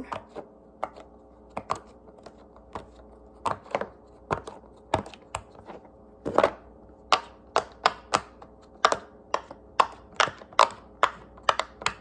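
Silicone pop-it fidget toy being popped by finger, a quick run of sharp pops at about two a second, with the toy flipped over partway through.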